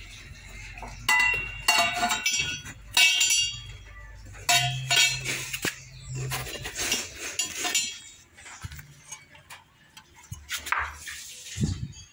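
Metal pieces of an aftermarket motorcycle exhaust, the header pipe and muffler, clinking and ringing several times as they are handled and knock together in their box.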